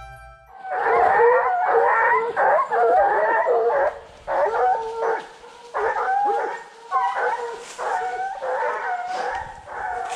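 A pack of running hounds baying in full cry, several dogs giving tongue over one another. The chorus is nearly continuous for the first few seconds, then comes in shorter bursts.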